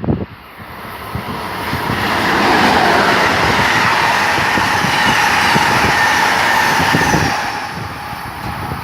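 A train passing on the rails: wheel and rail noise swells over about two seconds, stays loud and steady, then fades near the end.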